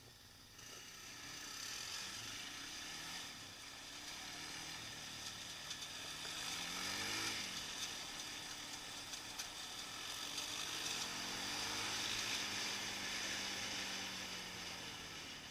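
Suzuki LTZ 400 quad's single-cylinder four-stroke engine under way, with wind rushing on the microphone. The engine revs up to about seven seconds in, drops back sharply, then climbs again and holds steady near the end.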